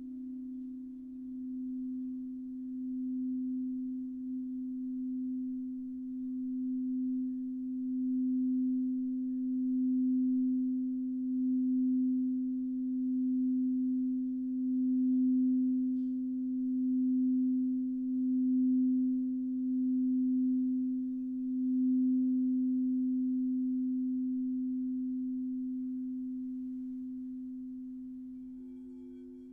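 Crystal singing bowl sounding one low, nearly pure tone that slowly swells and wavers in a slow pulse, then fades away over the last several seconds. Near the end a second, higher bowl tone comes in.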